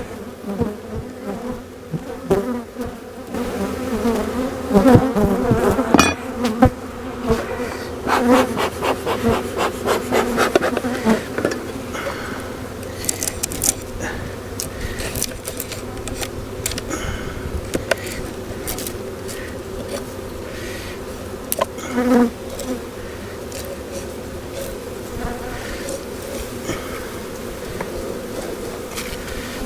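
Honeybees buzzing in a steady hum over an open hive. Wooden knocks and scraping come with it, from frames being pushed together in the hive box, most of them between about four and eleven seconds in.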